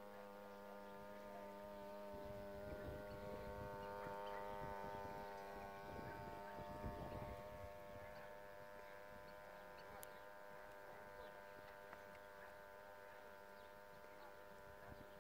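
Small motor of a radio-controlled cardboard model ship humming steadily, a faint, even hum that grows somewhat louder in the middle as the boat passes close, with some low rumbling in between.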